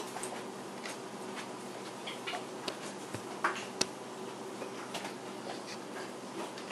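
Scattered light clicks and taps as sliced vegetables are handled and laid into an empty enameled cast iron Dutch oven, a couple of sharper taps past the middle, over a faint steady hum.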